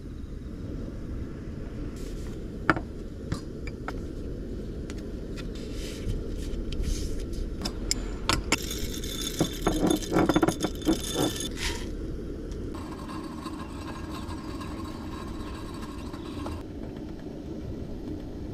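Single-burner canister gas stove running with a steady low rush under a pot of water being brought to the boil. Over it come clicks and clinks of coffee beans handled in a glass hand grinder, with a dense rattle of beans against the glass about nine to twelve seconds in.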